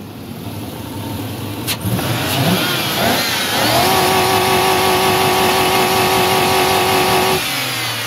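GM 5.3-litre V8 revved by hand at the throttle body: the engine speed climbs quickly and is held flat at the rev limiter for about three and a half seconds, then drops back sharply when the throttle is let go.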